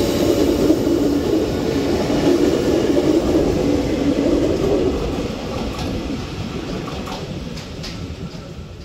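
Tokyo Metro 6000 series electric commuter train pulling out of the station and running past close by: a loud rumble of wheels and running gear that fades steadily as the train draws away, with a few faint clicks near the end.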